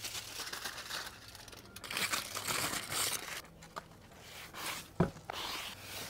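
Push broom sweeping across paver stones: uneven, scratchy swishes of the bristles, with a single knock about five seconds in.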